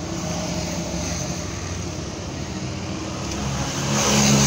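Road traffic: vehicle engines running steadily, with one vehicle passing close and growing loudest about four seconds in.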